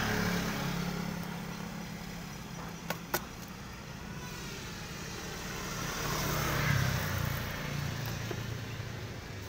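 Passing road traffic: a vehicle engine's low hum that swells and fades again about two-thirds of the way through, with two short clicks a little before halfway.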